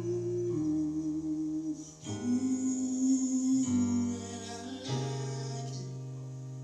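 Live slow R&B band music: held chords that change every second or so, with a wavering sustained melody line over them.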